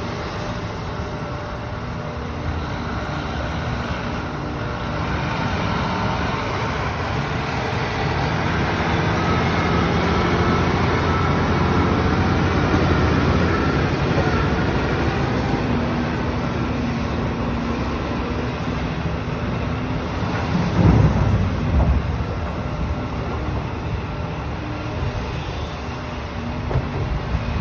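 Heavy diesel earthmoving machinery working: a Cat 374 excavator loading a Cat 745 articulated dump truck. A steady engine drone swells under load through the middle, with a loud low rumble about two-thirds of the way through.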